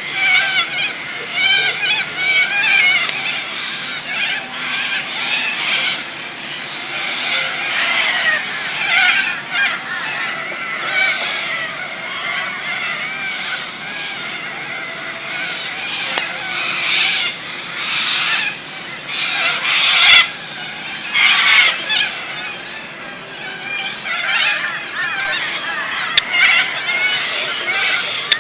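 Wild birds chirping and calling continuously, many short overlapping calls, with louder harsh screeching calls in the second half.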